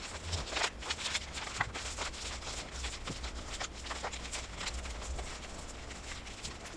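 A sheet of paper being folded and creased by hand: quiet, irregular crackles and taps of the paper, over a low steady hum.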